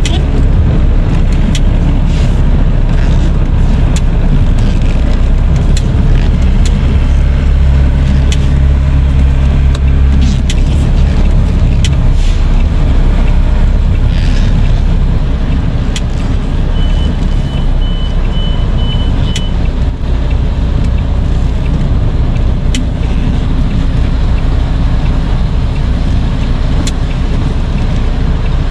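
Lorry's diesel engine running as the lorry manoeuvres, with a deeper, stronger engine note for a few seconds about a third of the way in. About two-thirds through, a short run of high, evenly spaced beeps.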